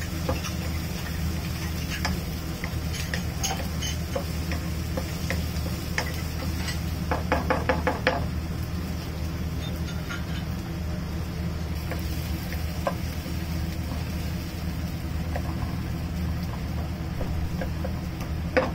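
Restaurant kitchen sounds: a steady low hum with scattered clicks and knocks of utensils and dishes, and a quick run of about eight clicks in a second about seven seconds in.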